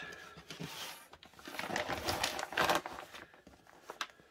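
Plastic bag crinkling and rustling in several irregular bursts as a cross stitch kit is handled, with a couple of light clicks near the end.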